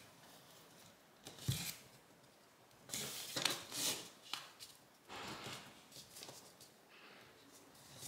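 Origami paper rustling and crinkling as fingers fold and crease it, in several short bursts, with a light tap about one and a half seconds in.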